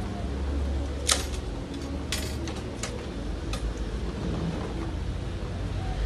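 A few sharp clicks and short rustles from small metal wire terminals and connectors being handled and fitted by hand; the loudest click comes about a second in. A steady low background rumble runs underneath.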